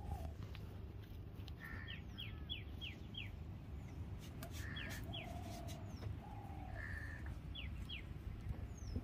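Birds calling: runs of short, quick chirps that fall in pitch, heard several times, with lower calls in between.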